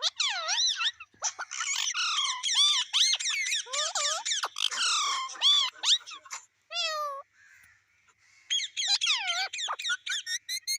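Parrot calling in a rapid string of squawks and chirps that sweep up and down in pitch, with a falling trill about seven seconds in, a short pause, then more calls near the end.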